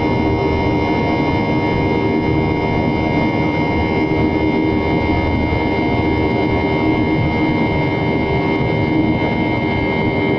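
Jet airliner cabin noise in flight: the steady rush of a Boeing 737's CFM56 turbofan and the air streaming past, heard from a window seat over the wing, with a steady whine from the engine.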